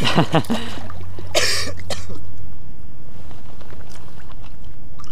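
Shallow water splashing as a released fish kicks away from the wader's hand: one splash at the very start and a shorter, sharper one about a second and a half in, then only a steady low rumble.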